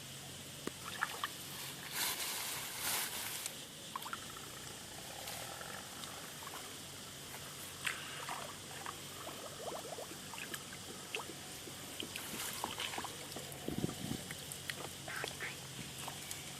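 Water splashing and sloshing in irregular bursts, with scattered small knocks and clicks and a brief low thump a little before the end.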